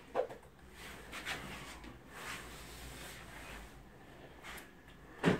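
A shoe sole being handled and turned over in the hands: soft rubbing and a few light knocks, with one louder thump near the end.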